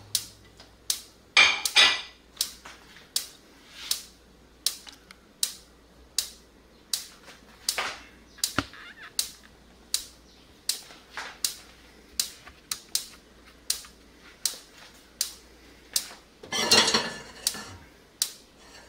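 Hot bacon grease popping in a cast iron skillet: sharp, uneven pops about twice a second. Two longer, louder noises come about a second and a half in and near the end.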